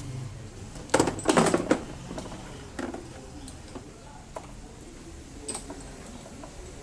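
Metal hand tools and parts clicking and clattering: a quick run of sharp clicks about a second in, then a few single clinks.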